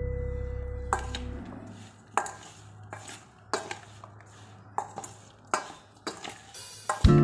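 A utensil clinking against a dish, about eight separate knocks spaced a little under a second apart, as when mixing food in a bowl. At the start the last guitar notes of the background music ring away.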